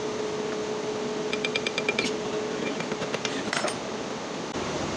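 Light metallic clicking and clinking as a cast-iron belt pulley is worked loose and pulled off a donkey water pump's shaft by hand: a quick run of ringing clicks, then a short clink and scrape a little later.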